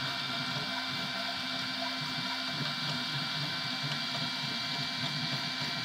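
FDM 3D printer running a print: its stepper motors give a steady whine of several tones over a low hum that keeps shifting as the print head moves.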